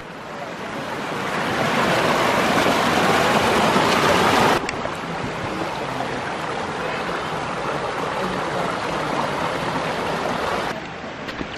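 Small mountain creek rushing and splashing over rocks in a steady noise of running water. It grows louder over the first two seconds, drops sharply about four and a half seconds in, and carries on a little softer.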